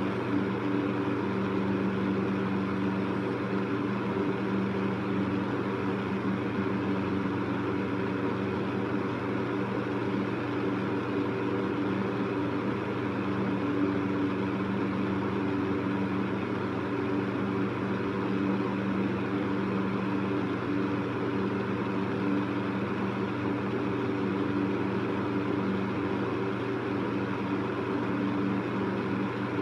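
Electric fan running steadily: an even whoosh of moving air with a low motor hum.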